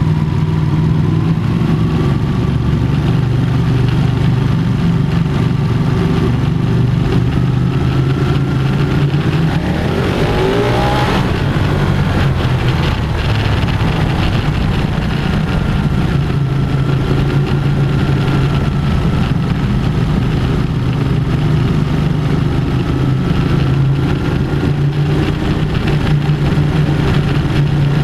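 Motorcycle engine running at a steady cruise inside a rock tunnel, with wind and road noise over it. About ten seconds in, a broad swell of noise rises and fades over a couple of seconds.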